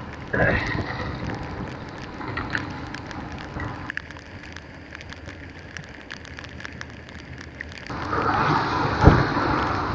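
Heavy rain pattering on the camera as a sharp spatter of drop ticks over a steady rush of wind and wet-road noise from riding a motorcycle. The rush drops back about four seconds in and grows louder again about eight seconds in.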